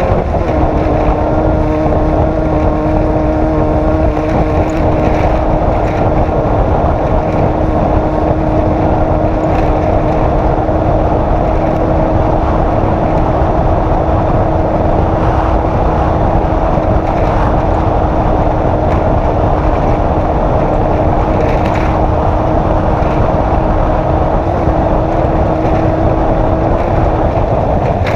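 Off-road race vehicle's engine running hard at a near-constant speed under heavy wind and terrain noise. The engine note dips slightly right at the start, then holds steady.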